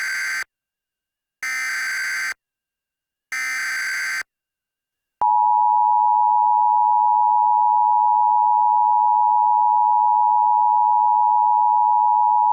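Emergency Alert System alert tones: the harsh digital warble of the SAME header data burst three times, the first already under way, each under a second long. About five seconds in, the steady EAS attention signal begins, a two-note 853/960 Hz dual tone held for about eight seconds.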